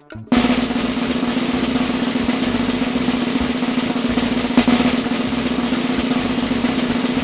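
A sustained drum roll, a fast, even rattle of strokes held at a steady level. It is the kind of roll played as a drumroll before a reveal.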